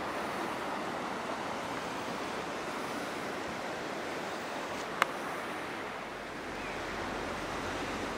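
Steady rush of river water running over rocky shallows, with a single sharp click about five seconds in.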